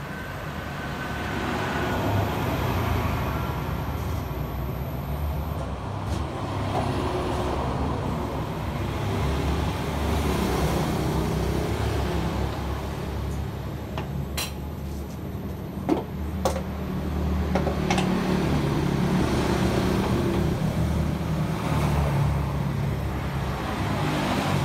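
Avian Brands paint mixing machine running, spinning a can of freshly tinted paint with a steady mechanical rumble. A few short clicks come about two-thirds of the way through.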